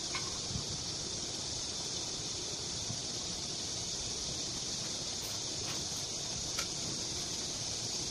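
Steady high-pitched hiss, with a few faint clicks and taps as small parts of a Honda GX35 four-stroke engine are handled during assembly.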